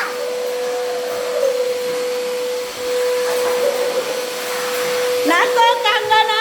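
Vacuum cleaner running steadily with a constant motor whine. A child's voice joins near the end.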